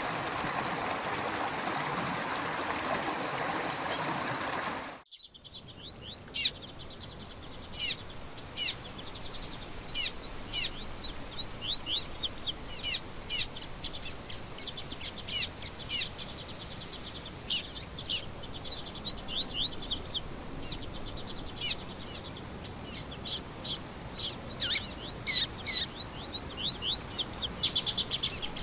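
Many songbirds chirping and calling in quick short high notes, over a faint steady high hum. For the first five seconds a steady rushing sound runs under a few chirps, then cuts off abruptly.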